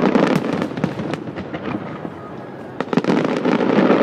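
Fireworks going off: a dense run of crackling pops and bangs, thickest at the start and again about three seconds in.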